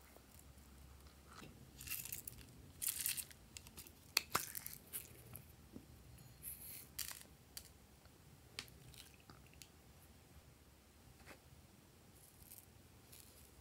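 Faint handling sounds of slime toppings and small plastic containers: scattered rustles and crinkles with a few light clicks, busiest in the first five seconds and sparser after.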